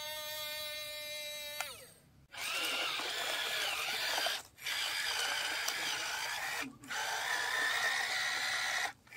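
Small electric gear motors of a toy radio-controlled excavator whirring in on-off runs of about two seconds each. The first run is a steady whine that winds down in pitch and stops under two seconds in. The rest are noisier gear whirring that starts and stops abruptly, as the tracks, the slewing and the arm are driven.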